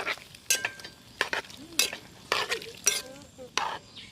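A spoon scraping around the inside of a cooking pot while stirring, in sharp strokes about two a second.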